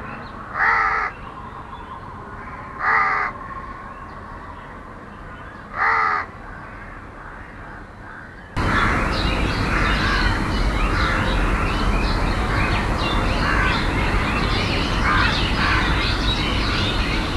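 A crow cawing three times, a harsh call every two to three seconds. About halfway through the sound cuts suddenly to a dense chorus of many small birds chirping over a steady hiss.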